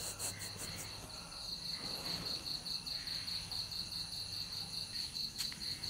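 Crickets chirping in a steady, rapid, even pulse, with a low steady electrical hum beneath and a faint click near the end.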